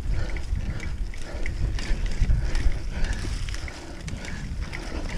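Mountain bike being ridden up a rocky trail section: tires grinding and bumping over rock with scattered rattles and clicks from the bike, under a steady rumble of wind on the microphone.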